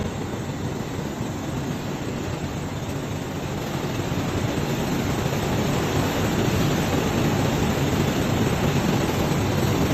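Steady, dense mechanical noise of a row of automatic spoon and fork flat polishing machines running, growing a little louder about halfway through.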